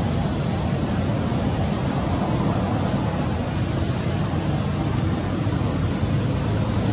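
Steady outdoor background noise, even in level and heaviest in the low range, with no distinct event or animal call standing out.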